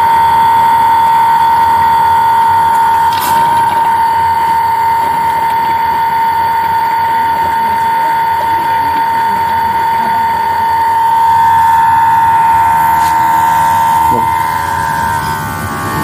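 Small battery-powered honey suction pump whining steadily as it draws stingless-bee honey out of the hive's honey pots through a hose. The steady whine wavers briefly near the end.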